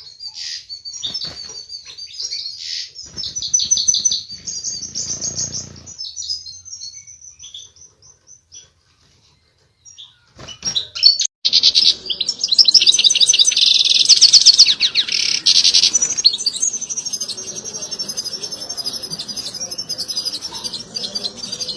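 European goldfinch twittering: rapid chirps and trills of the 'batbata' call. It breaks off for a couple of seconds midway, then comes back loud and dense before going on more softly.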